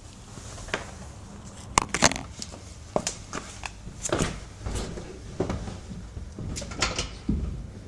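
Irregular handling noises: about a dozen sharp clicks and knocks with short rustles, over a low steady background hum.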